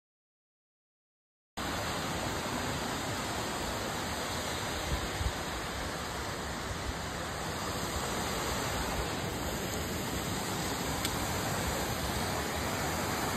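A second and a half of dead silence, then the steady, even rush of a waterfall.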